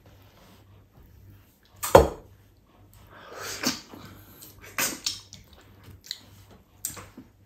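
Wet mouth sounds of eating ripe mango by hand: slurping and sucking soft flesh off peeled strips, with smacking lips, in several separate bursts. The loudest is a sharp noise about two seconds in.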